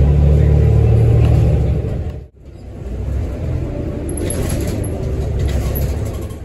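Loud, steady low rumble of heavy highway traffic with a big truck going by, cutting off about two seconds in. Then comes the quieter running noise of a city transit vehicle heard from inside its cab as it rolls along the street, with some higher hiss near the middle.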